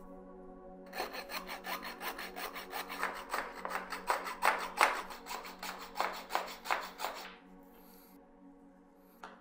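Coping saw cutting through a small wooden dowel by hand, in quick, even back-and-forth strokes that start about a second in and stop about seven seconds in.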